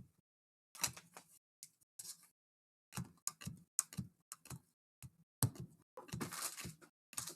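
Trading cards and pack wrappers being handled: scattered short taps and clicks, with a longer rustle about six seconds in.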